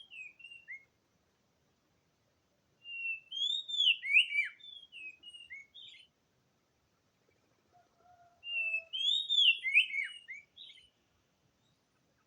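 Oriental magpie-robin song: a whistled phrase of rising and falling notes, repeated almost identically twice, about five seconds apart, after a short fragment at the very start.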